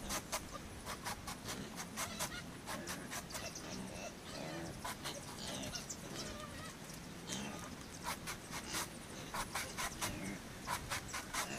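A knife chopping into a soft banana trunk, quick strokes about three a second, in two runs with a slower stretch in the middle.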